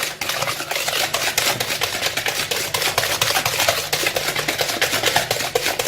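Hand whisk beating an egg into creamed margarine and sugar in a bowl, a rapid, steady clatter of wire against the bowl.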